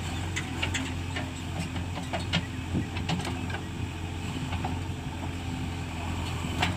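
JCB 3DX Xtra backhoe loader at work: its diesel engine running steadily, with scattered sharp clanks and knocks throughout.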